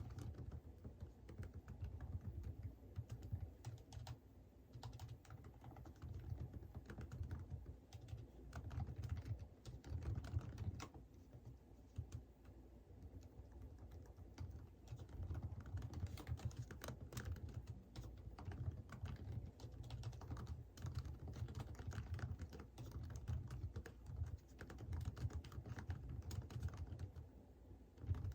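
Computer keyboard typing in runs of rapid keystrokes with short pauses between them.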